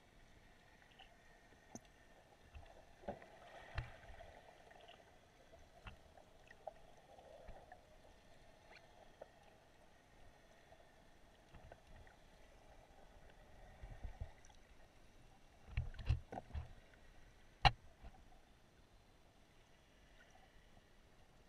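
Faint, muffled underwater noise picked up by a submerged camera, with scattered soft clicks and knocks, a cluster of thumps about 16 seconds in and one sharp click just before 18 seconds.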